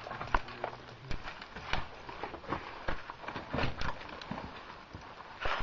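Irregular knocks and clacks, a few a second, of a caver's gear and boots against rock.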